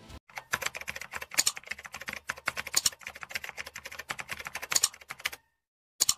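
Typing sound effect: a fast, uneven run of key clicks that stops suddenly, then a single short click near the end.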